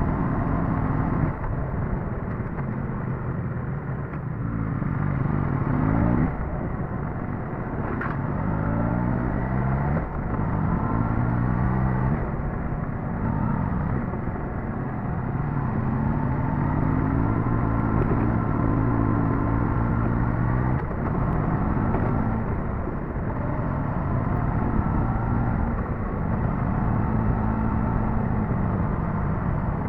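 Suzuki GSX-S1000GT's inline-four engine running on the move, its revs climbing and then dropping several times as the rider works the throttle and gears. A short sharp click about eight seconds in.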